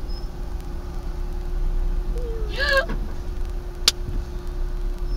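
Dashcam recording of a car cabin in stop-and-go traffic: a steady low rumble of the engine and traffic under a faint steady hum. There is a brief voice sound about two and a half seconds in and a sharp click just before four seconds.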